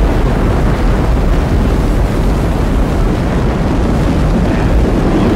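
Space Shuttle lift-off: the loud, steady roar of its main engines and solid rocket boosters, heaviest in the bass.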